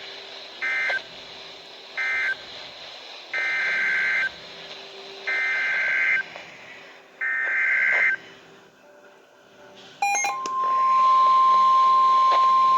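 Emergency Alert System SAME digital data bursts, buzzy two-pitch warbles. First come two short end-of-message bursts closing the tornado warning, then three longer header bursts for the next alert, each about a second apart. About ten seconds in, after a brief click, a steady single-pitch NOAA Weather Radio warning alarm tone starts and holds.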